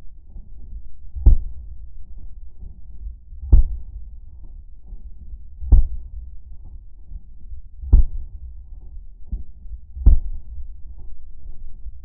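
AK-47-pattern rifle in 7.62x39 fired in slow, deliberate single shots, about one every two seconds: five loud shots and a fainter one between the last two. Each shot comes through as a dull, low bang.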